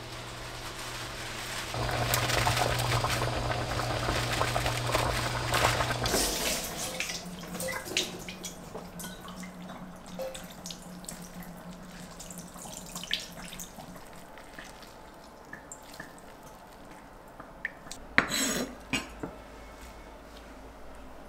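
Kitchen tap running and water splashing as blanched spinach is rinsed in cold water, then water dripping and trickling into a bowl as the spinach is squeezed out by hand, with a few small clinks and a brief louder rustle near the end.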